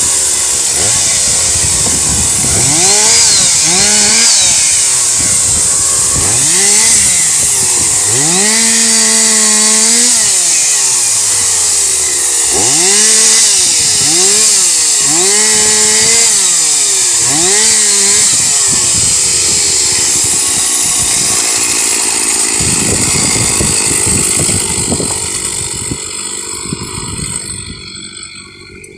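Chainsaw engine cutting wood, its pitch rising and falling again and again as it revs and bogs under load. About two-thirds through it settles to a lower, steadier note, and it quietens near the end.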